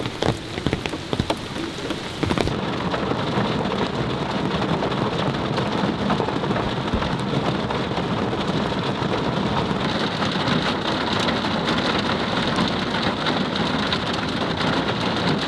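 Heavy rain pouring down in a dense, steady patter; about two seconds in the sound turns duller, losing its highest hiss.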